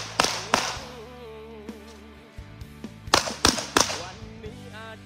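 Semi-automatic shotgun firing in a practical shooting course: two fast shots right at the start, then three rapid shots about a third of a second apart roughly three seconds in. Background music plays under the shots.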